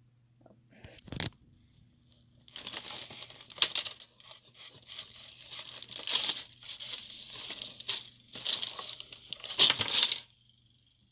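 Lego set packaging being opened: plastic and cardboard crinkling and tearing, with sharp louder rips, starting a couple of seconds in and stopping abruptly near the end.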